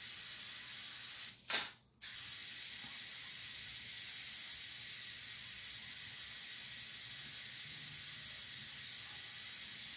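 High-voltage ion lifter hissing steadily: corona discharge from its thin emitter wire, which drives the lifter off its base. About one and a half seconds in there is a single sharp crack. The hiss cuts out briefly after it and then resumes.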